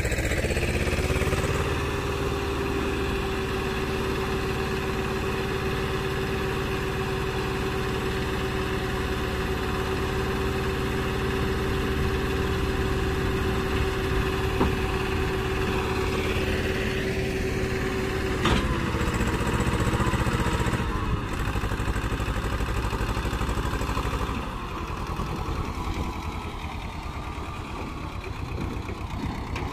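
Swaraj 724 XM tractor's two-cylinder diesel engine running steadily under load while its hydraulics tip a trolley loaded with soil. A steady whine rides over the engine until it ends with a sharp click about two-thirds of the way through, and the engine eases off in the last few seconds.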